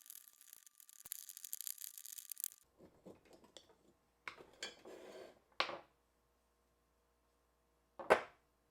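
A short stretch of rubbing or scrubbing on a small part, then light clicks and clunks of parts being handled, with one sharper knock near the end.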